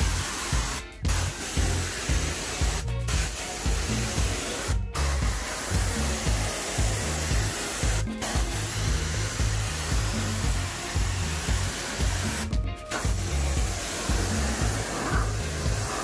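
Pressure washer wand spraying a jet of water onto concrete: a steady loud hiss over a low churning rumble, breaking off for a split second about five times.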